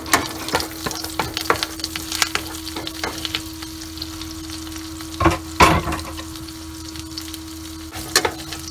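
Minced garlic sizzling and crackling in melted butter in a nonstick frying pan, stirred with a wooden spatula. The spatula scrapes and knocks against the pan, loudest about five to six seconds in and once more near the end, over a steady low hum.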